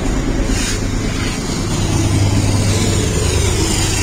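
BNSF and Norfolk Southern diesel-electric freight locomotives passing close by, their engines running with a steady, loud low hum and rumble.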